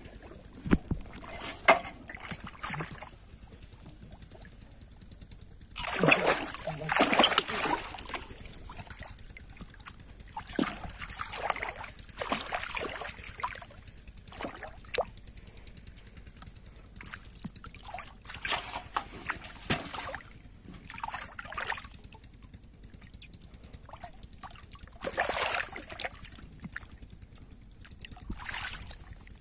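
Water splashing and sloshing in irregular bursts as a hooked catfish thrashes at the surface of a shallow pond. The biggest burst of splashing comes about six seconds in.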